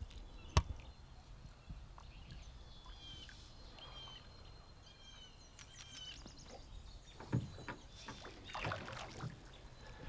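River ambience from a drift boat: a sharp knock about half a second in, then a songbird chirping a run of short high notes, and a few splashy water sounds near the end.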